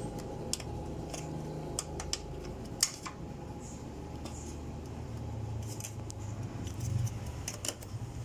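Small irregular plastic clicks and snaps as a push-pin grille clip on a FAW V2 is pried up and worked loose by hand, over a steady low hum.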